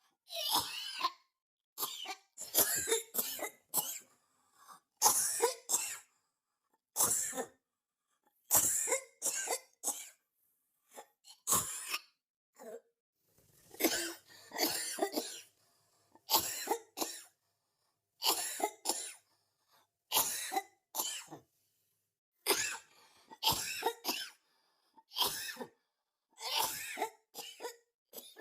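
Human coughing over and over, in bouts of a few coughs each, one bout every second or two with silence in between.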